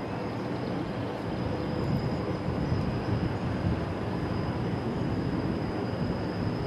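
Rhaetian Railway train running around the curve of a stone spiral viaduct: a steady rumble of wheels on rail that grows slightly louder, with a thin steady high whine above it.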